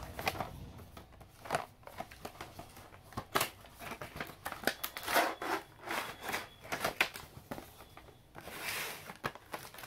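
Cardboard box being opened and a plastic packaging tray slid out: a run of short rustles, scrapes and taps of cardboard and plastic, with a longer sliding rustle near the end.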